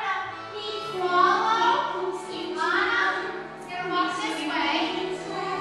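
A children's song: singing over backing music with held low bass notes.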